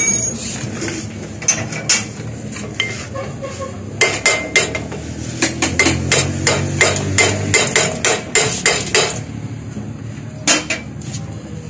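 Hammer striking the steel rotor hub on the shaft of a homemade corn mill. There are a few scattered blows first, then a quick run of about three metal strikes a second, and one last blow near the end.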